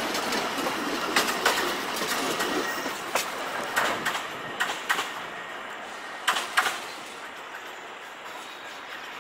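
Wheels of passing meter-gauge passenger coaches clacking over rail joints, with a steady rolling rumble. The clacks come in quick pairs a few seconds apart. The sound fades as the last coach moves away, and the last pair comes about two-thirds of the way in.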